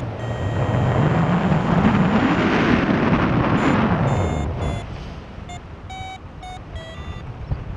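Wind rushing over the microphone in flight, loudest for the first four and a half seconds. After that a paragliding variometer beeps in short tones of changing pitch, the beeping that signals rising air.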